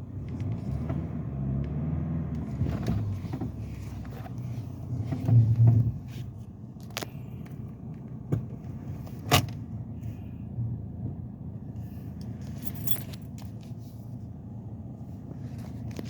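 A 2007 BMW's engine running steadily, with irregular sharp clicks and knocks over it and a louder low thump about five seconds in.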